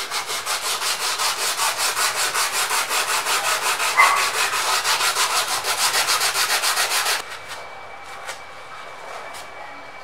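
Oil-contaminated bicycle disc brake pad rubbed back and forth on 120-grit sandpaper, a quick, even run of scraping strokes about four a second, sanding off the oil-soaked surface layer of the pad. The strokes stop about seven seconds in.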